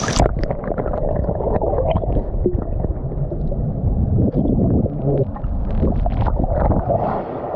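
A splash as the camera plunges into the waterfall pool. It is followed by muffled, gurgling underwater rumble of churning water, with the higher sounds cut off while the microphone is submerged.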